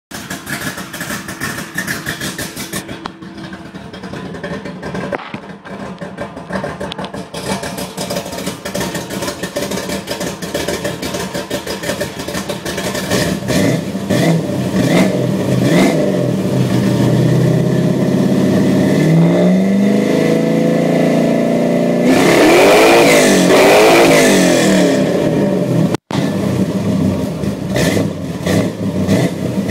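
Cammed small-block Chevy 350 V8 with long-tube headers, heard at the exhaust tip: it idles, is blipped a few times from about halfway through, and gets a longer run of revs rising and falling near the end before settling back to idle.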